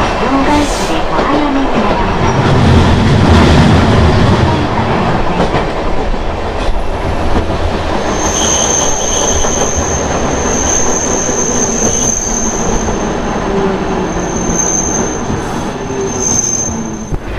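Hankai Tramway Mo 351-series tram running, its nose-suspended traction motors growling loudest about three seconds in, then fading. From about eight seconds in, a thin, steady high-pitched wheel squeal comes and goes as the car approaches a stop.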